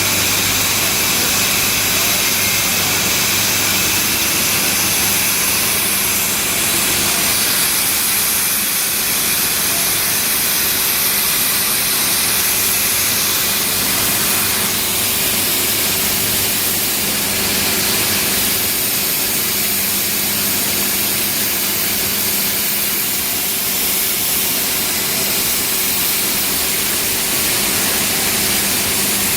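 Old steam engine running in a sugar mill, a steady loud hiss over a constant low hum, without pauses or clear strokes.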